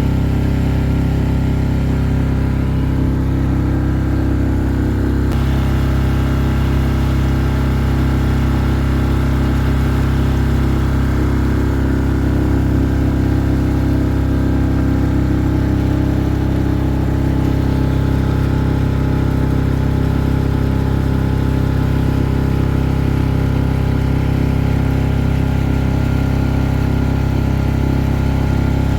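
An engine running steadily at an even speed, a continuous low drone that does not change.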